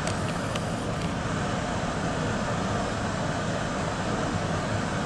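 Steady traffic noise from nearby roads, with a few faint, short bird chirps in the first second.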